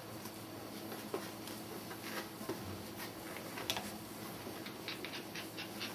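Border Collie puppies scuffling at play, their movements making scattered light clicks and taps, with a quick run of ticks near the end.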